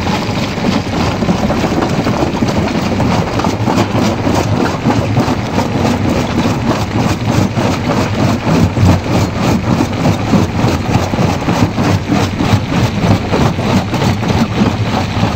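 Stone jaw crusher running and crushing rock: a loud, steady mechanical din with a fast, regular pulse from the swing jaw's strokes against the stone.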